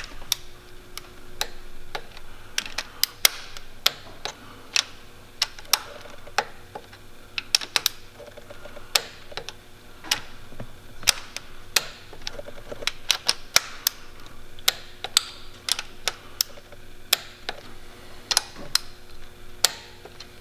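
Torque wrench working round the rocker-arm adjusting-screw lock nuts on a Detroit Series 60 diesel head: sharp metallic clicks at uneven intervals, some in quick runs, as each nut is brought up to 33 ft-lb.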